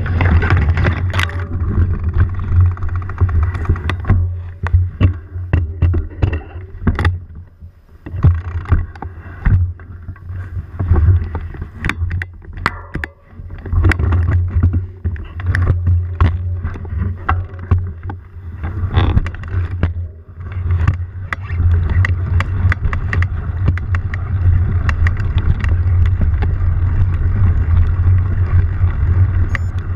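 Steady low rumble of a moving camera rig on a brushy dirt trail, with many sharp clicks and crackles of twigs, leaves and branches. The rumble drops away briefly a few times.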